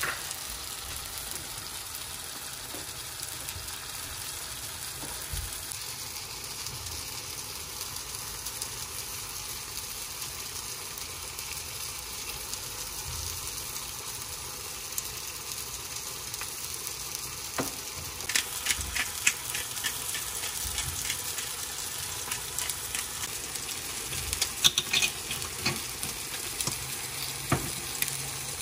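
Eggs and tomatoes frying in oil in a pan, a steady sizzle with light crackling. In the second half a pepper grinder clicks in short quick runs, twice, as black pepper is ground over the eggs.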